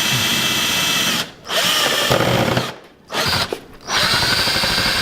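Handheld power drill running in four bursts with short pauses, its motor whining at a steady pitch while drilling holes through the car's front bumper and lip.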